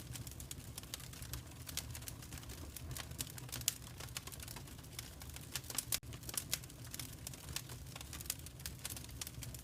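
Wood fire crackling in a fireplace: irregular sharp pops and snaps over a steady low rumble from the flames, with a few louder pops around the middle.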